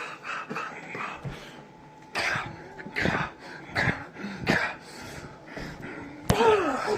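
A man coughing several times in short bursts, spaced about a second apart.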